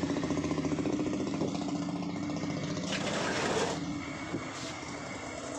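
A small engine idling steadily with a fast even pulse, growing fainter, with a brief rushing noise about three seconds in.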